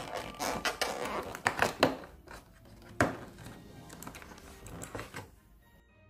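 Cardboard and packaging crackling, rustling and clicking as an advent-calendar door is opened and the product pulled out. Near the end the handling stops and faint music with bell-like tones comes in.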